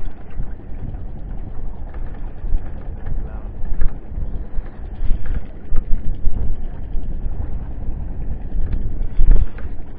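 Wind buffeting the microphone on a small boat at sea: a gusty low rumble that swells and drops, with a few sharp peaks.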